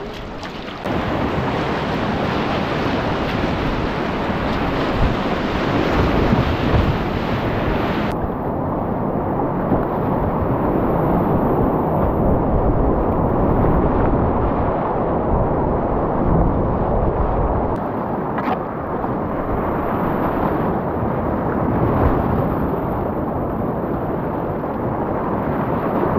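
Whitewater rapids rushing and splashing around a kayak, picked up close on an action camera as a loud, dense rumble. About eight seconds in the hiss drops away and the rush turns muffled.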